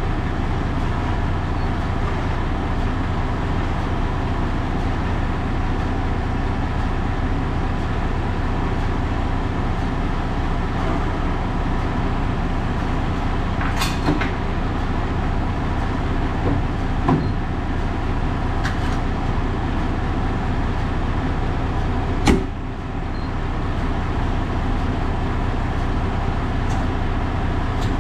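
Kenworth W900L semi truck's Cummins X15 diesel engine running with a steady drone. A few sharp clicks or knocks break in, the loudest about two-thirds of the way through.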